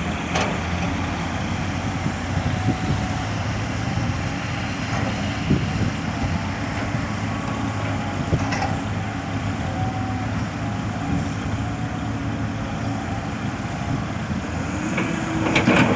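CAT 320D excavator's diesel engine running steadily while digging and loading soil into a dump truck, with a few short clanks.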